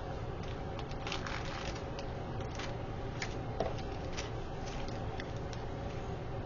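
Light clicks and rustling of small plastic packets of rhinestone embellishments being sorted through by hand, over a steady hum. One sharper click comes about three and a half seconds in.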